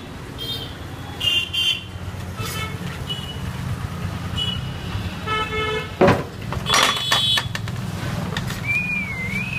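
Street traffic noise: a steady low engine drone with several short vehicle horn toots, and one sharp knock about six seconds in.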